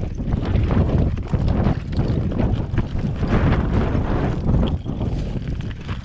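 Mountain bike rolling downhill over loose shale: tyres crunching and clattering over the stones, with the bike rattling and wind buffeting the microphone.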